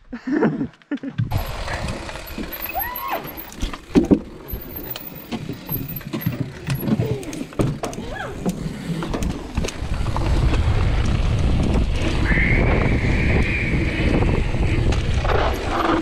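Mountain bike being ridden, heard from the rider's camera: tyres and frame rattling and clattering over the trail and wooden planks, then a steady rolling rumble with wind on the microphone from about ten seconds in as it picks up speed on gravel. A high squeal sounds for a couple of seconds near the end.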